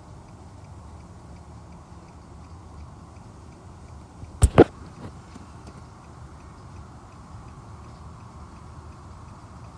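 Faint, regular ticking, about two ticks a second, over a steady low background hum, with two sharp clicks close together about halfway through.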